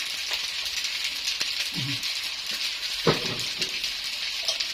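Basmati rice frying in butter and oil in a pot: a steady sizzle with fine crackling. Two brief low murmurs of a voice break in, about two and three seconds in.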